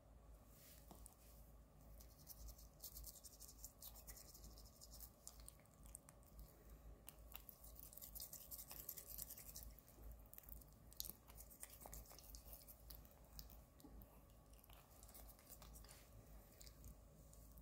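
Faint scratchy scrubbing of a small toothbrush brushing a cat's teeth, in quick short strokes that are busiest through the middle stretch.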